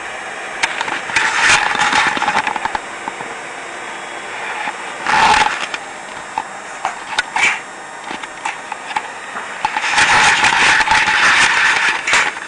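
Small motorised mechanisms of a PC-controlled toy railroad setup whirring and rattling in bursts: a long burst about a second in, two short ones in the middle, and a longer one over the last couple of seconds.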